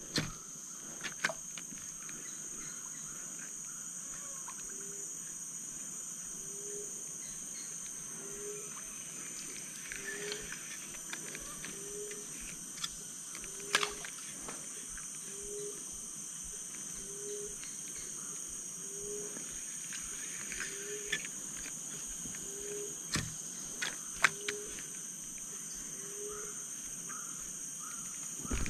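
Tropical forest ambience: a steady high-pitched drone of insects, with a short low call repeating about once a second through most of it, and a few scattered clicks.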